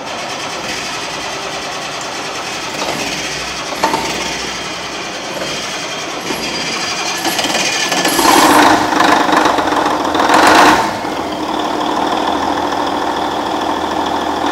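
Cummins N14 inline-six diesel engine running, getting louder for about three seconds past the middle.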